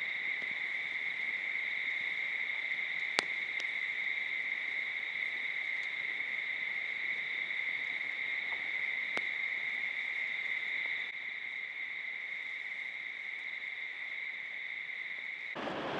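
Steady high-pitched insect chorus: one unbroken tone with a fainter one above it, a little quieter after about eleven seconds, with a few faint clicks. It gives way to a broad rushing noise right at the end.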